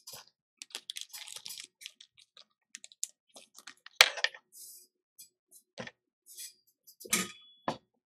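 Small parts and tools being handled on a workbench: a run of light clicks and rustles, with a sharp click about four seconds in and two more near the end.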